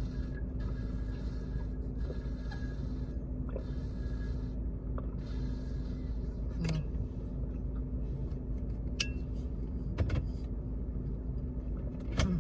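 Steady low hum inside a car's cabin, with a few small clicks and knocks, one a little louder about ten seconds in.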